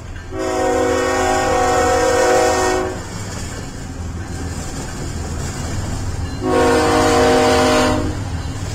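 A Kansas City Southern diesel locomotive's air horn sounds two long blasts. Each is a steady chord of several notes, the first about two and a half seconds and the second about a second and a half. Under them runs the steady low rumble and wheel clatter of a passing double-stack freight train.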